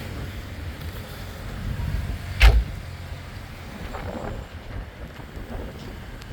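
A car door shut once, a sharp thump about two and a half seconds in, over a low steady rumble.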